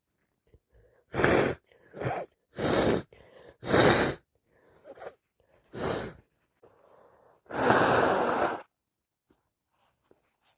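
A woman with a heavy cold sneezing several times in a row: a run of short, loud sneezes and breaths, then one longer, noisier burst a little after the middle.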